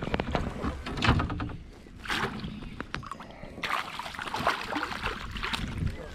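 Water splashing and sloshing beside a fishing kayak, with scattered knocks and rattles of handling on the hull.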